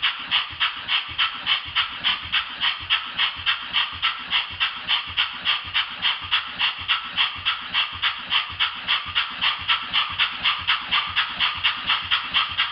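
Model oscillating-cylinder steam engine running on compressed air fed to one side only, its exhaust chuffing in a steady, even rhythm of hissing puffs, about four a second.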